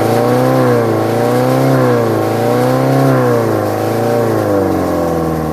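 Isuzu 4BE1 four-cylinder diesel engine running, its revs rising and falling gently several times before holding steady near the end.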